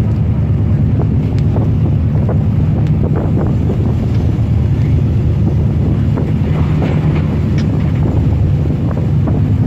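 Marine engines running steadily with a low drone, while strong wind buffets the microphone. Scattered faint knocks sound through it.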